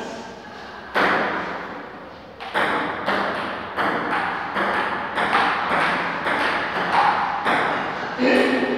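Table tennis rally: a ping-pong ball striking paddles and the table in turn, each hit followed by a ringing echo of the bare room. The hits start about a second in and come about every half second to second.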